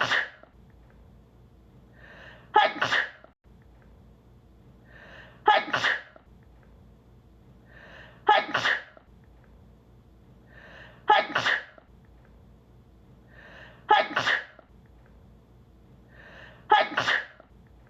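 A woman's sneeze edited into a loop: the same short intake of breath followed by a loud 'achoo' repeats evenly about every three seconds, seven times.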